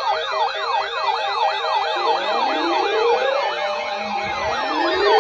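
Siren sounds: a fast yelp sweeping up and down about four times a second, joined about two seconds in by a slower siren rising in pitch.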